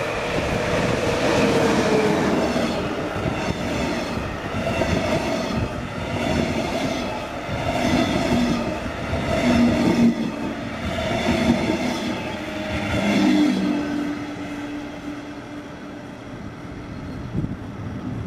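DB class 112 electric locomotive and its double-deck coaches passing close by: wheels rattling over the rails with a rise and fall as each car goes past, some steady whining tones underneath, fading away about fourteen seconds in.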